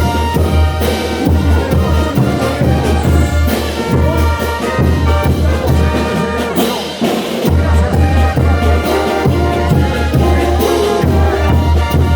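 Bolivian carnival brass band playing, with trumpets and trombones carrying the tune over a heavy, pulsing bass. The bass drops out briefly about seven seconds in, then comes back.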